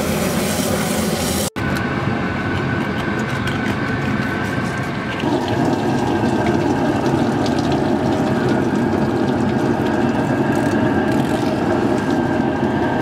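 Water running steadily at a fish-cleaning table while salmon are filleted, with a few faint clicks. The sound cuts out briefly about a second and a half in.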